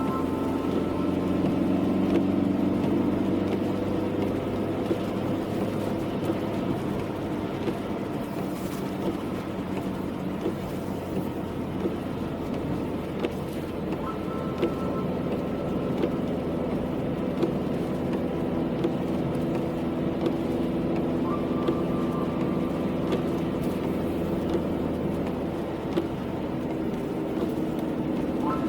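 Car driving, with steady engine and road noise whose low hum shifts slowly in pitch.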